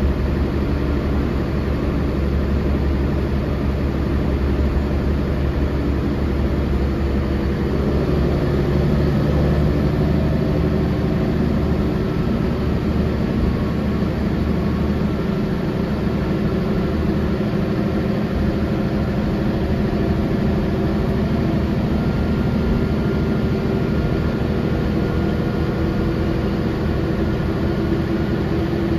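Cabin sound of a 1999 Volvo B10L bus under way: the rear-mounted engine and drivetrain running steadily over road noise. The engine note changes about eight seconds in as the bus alters speed.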